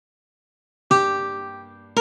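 A single plucked ukulele note, the opening G of the melody, starts about a second in after silence and rings out, fading away. A second note begins right at the end.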